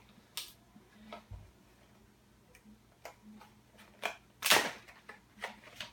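Scattered small clicks and taps from handling cardboard blind boxes and small plastic figures, with a louder short crackle of cardboard about four and a half seconds in.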